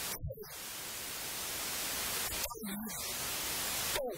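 Steady, loud hiss of static in the recording, broken by a few brief fragments of a man's voice talking into a handheld microphone.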